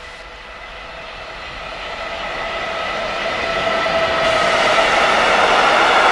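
Freight train hauled by an electric locomotive approaching and passing through the station, growing steadily louder as it comes close. Several steady whining tones ride over the rumble of the train.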